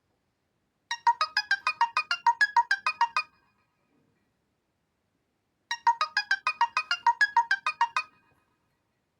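A Reeder P13 Blue smartphone playing one of its built-in ringtones: a quick run of bright, pitched notes, about six a second, lasting some two and a half seconds. It starts about a second in and repeats the same phrase after a pause of about two seconds.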